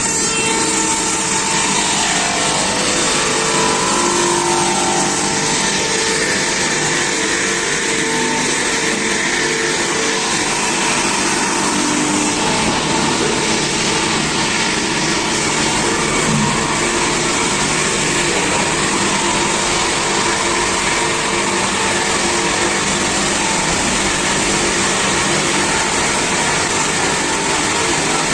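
Multi-saw log-sawing machine running, its electric-driven circular saws and feed giving a loud, steady machine noise with a constant hum.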